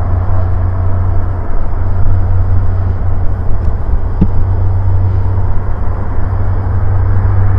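Antonov An-26's twin turboprop engines and propellers running as the plane rolls along the runway: a loud, steady drone over a deep hum.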